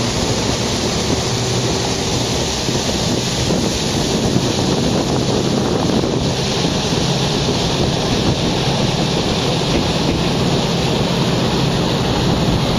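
Passenger boat under way at speed: a steady engine drone under wind rushing over the microphone and water rushing along the hull.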